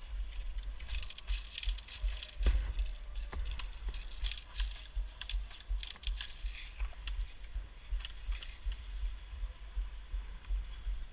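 Crunching and rattling from someone moving about on foot, with a low rumble on the microphone that rises and falls about twice a second and scattered small clicks.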